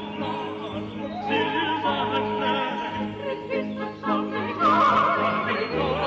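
Arabic song: a woman's voice singing long held notes with a wide vibrato over instrumental accompaniment, getting louder about two-thirds of the way in.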